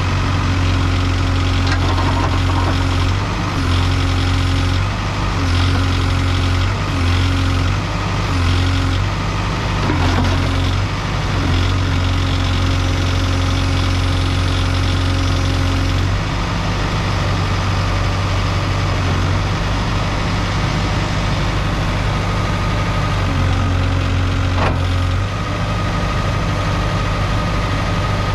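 Diesel engine of a Case 770EX-SS loader backhoe running, its low hum stepping up and down every second or so in the first half, then holding steady for several seconds before shifting again near the end.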